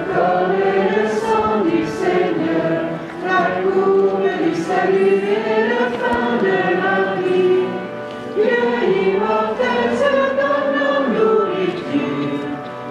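Choir singing a hymn in sung phrases, with short breaks between phrases about three, eight and twelve seconds in.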